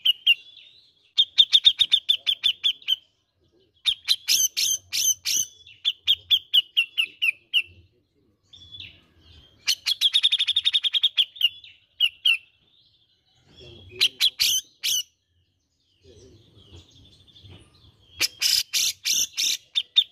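Grey-cheeked bulbul (cucak jenggot) calling: about five bursts of fast, evenly repeated sharp chattering notes, with short pauses between them.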